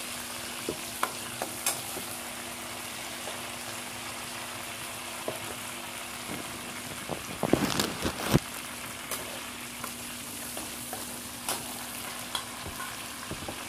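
Cumin, ginger-garlic paste and green onion frying in hot oil in a pan: a steady sizzle with scattered light clicks of a spoon. About seven and a half seconds in, a louder burst of stirring and scraping lasts about a second.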